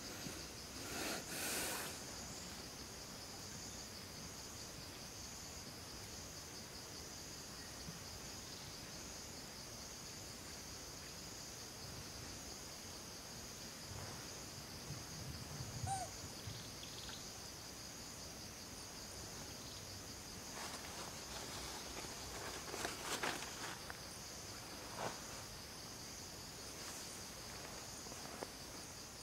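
Steady, high-pitched chorus of insects with a fast pulsing buzz, with a few brief rustles or knocks, the loudest about a second in and again about three quarters of the way through.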